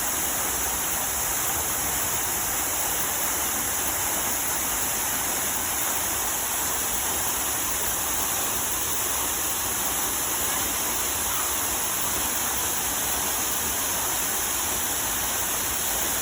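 Water cascading down a man-made waterfall fountain: a steady, even rush of falling water with no breaks.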